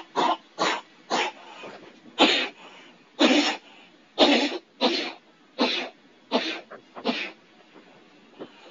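A person coughing in a rapid, repeated fit, about eleven harsh coughs that stop about seven and a half seconds in. The voice is run through a HeliumBooth pitch-raising voice-changer app.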